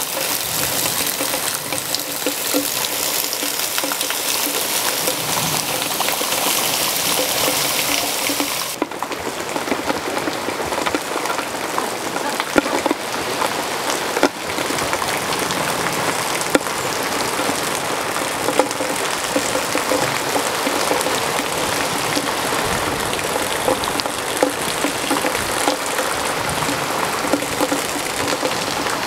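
Steady rain falling on the courtyard's ground and surfaces, an even hiss with a few sharper drips and knocks about halfway through.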